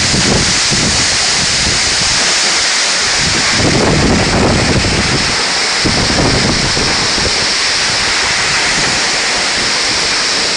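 Waterfall: falling water making a loud, steady rush, with wind buffeting the microphone in low gusts.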